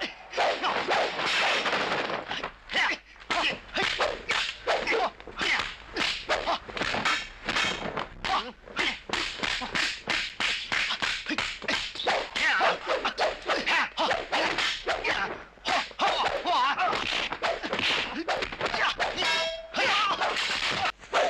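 Dubbed kung fu film fight sound effects for staff fighting. Quick swishes of swung staffs and sharp whacks of blows follow one another, several a second, without a break.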